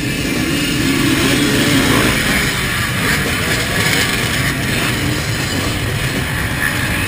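A pack of enduro motorcycles racing past together, many engines revving at once in a dense, steady din.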